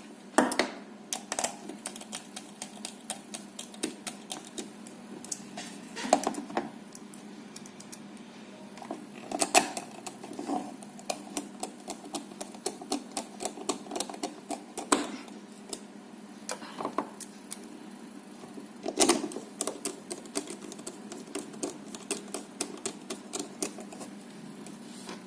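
Rapid, irregular light clicking with a few louder knocks: the small plastic and metal parts and hand tools of a handheld VHF radio being handled as the radio is reassembled.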